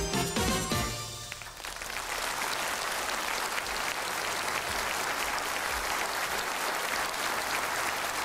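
A TV programme's title theme music ends about a second and a half in, and a studio audience applauds steadily after it.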